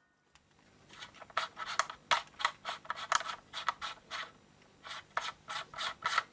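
Metal flash hider on a WE SCAR L gas blowback airsoft rifle being twisted by hand on the barrel's threads, giving an irregular run of short metallic clicks and scrapes.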